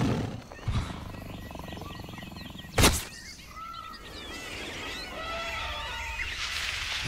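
Animal calls, short chirping and warbling cries, over a low steady rumble, with one sharp knock about three seconds in.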